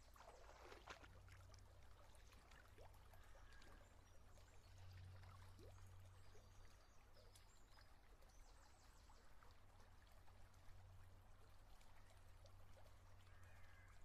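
Faint trickle of a shallow creek flowing over gravel, with a small splash about a second in as a hand lets a trout go in the water. A low steady hum lies under it.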